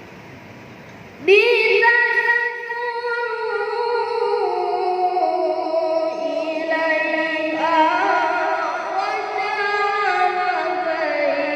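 A boy qari reciting the Quran in melodic tilawah style. About a second in he begins one long ornamented held phrase, its pitch stepping gradually downward with rapid melismatic turns.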